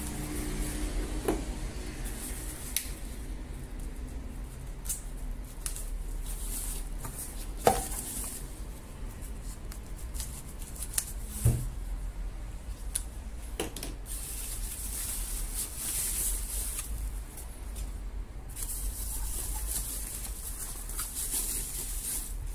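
Plastic protective bags crinkling and rustling as two PC speakers are pulled out of them by hand. A few light knocks come through, about eight and eleven seconds in.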